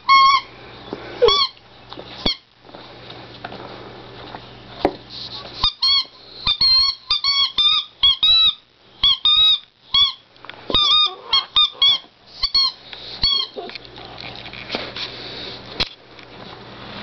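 A puppy chewing a squeaky toy pig, setting off short high squeaks in quick clusters with pauses between. The busiest run comes in the middle.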